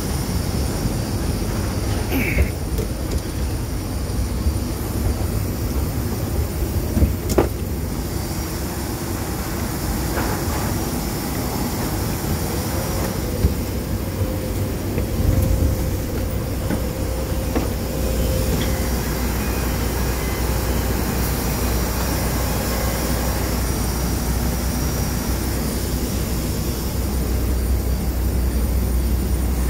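Steady rumble and high whine of aircraft and ground equipment on an airport apron, with a few knocks from footsteps on metal boarding stairs.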